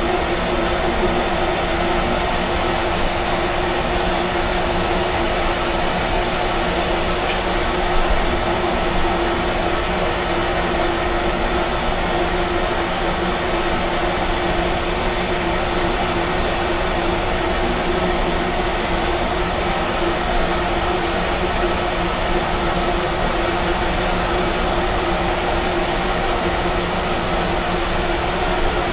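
Electric motor of a power tool running steadily, a constant hum over a broad hiss.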